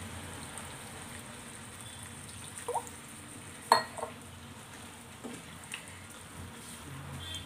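Chicken curry sizzling in a nonstick kadai as water is poured in, then stirred with a wooden spatula. A few sharp knocks of utensils against the pan, the loudest just under four seconds in.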